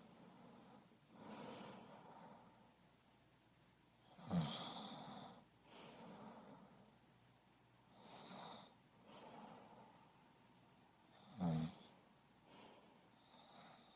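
Slow, deep breathing in and out, about eight breaths. The two loudest, about four and eleven and a half seconds in, have a snoring rasp.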